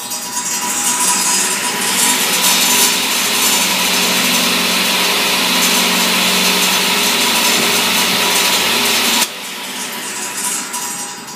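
Jet CTAS-10 cabinet table saw's 220-volt single-phase motor and blade, started from the magnetic starter's push button, spinning up over the first couple of seconds and then running steadily; the owner finds it starts a little slower than he is used to. About nine seconds in the sound drops sharply and then fades.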